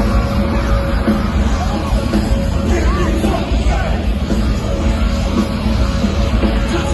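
Loud live nu-metal music through a concert sound system, with distorted guitars and heavy drums, heard from inside the crowd, with scattered yells.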